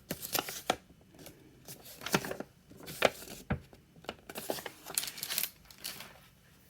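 Hands handling notebook inserts and packaging: a dozen or so scattered clicks, taps and short rustles.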